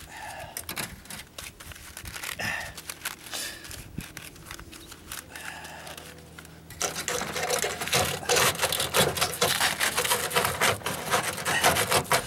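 Gloved hands handling aluminium roof flashing and wire mesh, with rustling, crinkling and scraping. About seven seconds in it turns suddenly louder and denser, a rapid run of crackling strokes.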